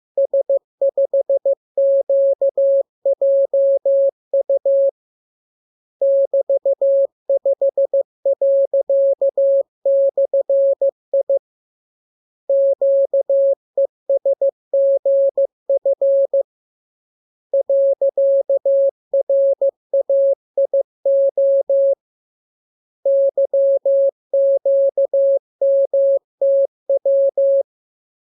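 Morse code sent as a single steady tone just above 500 Hz, keyed in short and long pulses (dots and dashes). The characters come in five runs of about four seconds each, with pauses of about a second between them.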